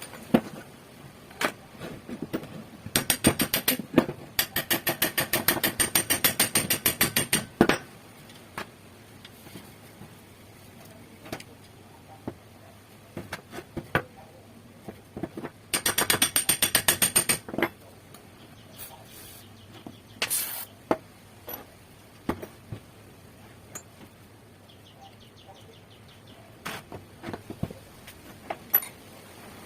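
Two bursts of fast, rhythmic scraping or clicking strokes, about eight a second, from a tool being worked against metal parts. The first starts about three seconds in and lasts nearly five seconds; the second, around sixteen seconds in, lasts about two seconds. Scattered single clicks and taps come in between.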